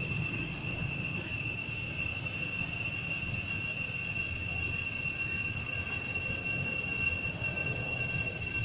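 Steady, unbroken high-pitched insect drone, cicada-like, over a low outdoor rumble.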